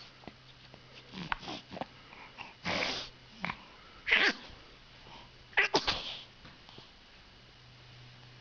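A baby sneezing several times in a row, short sneezes about a second or so apart.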